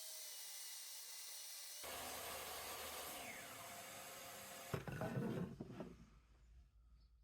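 A tool working wood with a steady rasping noise, then a few knocks of wooden pieces about five seconds in, followed by quieter light handling.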